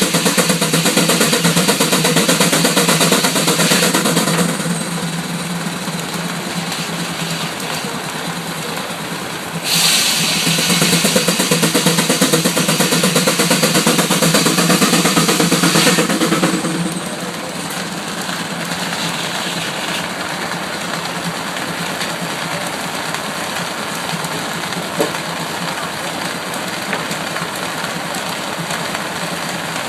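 Sawmill running, with two louder stretches of several seconds each, one at the start and one from about ten to sixteen seconds in, and steadier machine running between and after.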